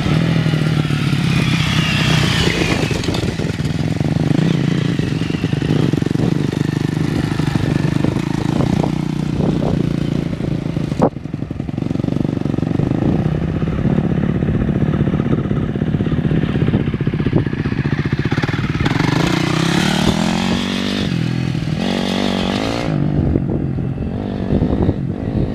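Dirt bike engine running as the bike is ridden, its pitch rising and falling with the throttle. It dips briefly about eleven seconds in and revs up again near twenty seconds.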